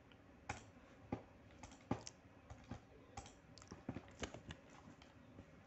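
Faint computer mouse clicks and keyboard key presses, about a dozen short clicks at irregular intervals.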